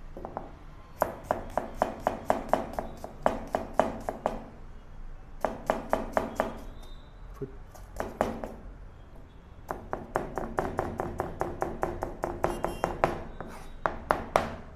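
Chef's knife chopping onion on a plastic cutting board: rapid, even knocks of the blade striking the board, about five a second. The knocks come in four runs, with short pauses between them.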